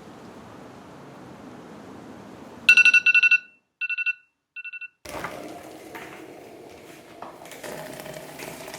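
Phone alarm going off: rapid high electronic beeps in three short bursts, after a faint steady hiss. It is followed by rustling and light knocks of someone moving about.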